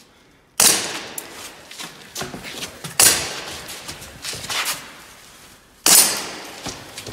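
Airsoft pistol firing three single shots about two and a half seconds apart, each a sharp crack with a short ringing tail, with a few lighter clicks between them.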